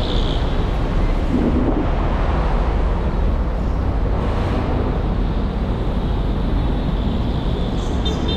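Steady traffic noise from a busy city road, a continuous low rumble with no distinct single event.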